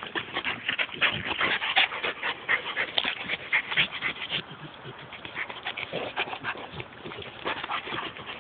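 A pit bull and a St. Bernard play-wrestling, with quick, irregular panting and breathy play noises.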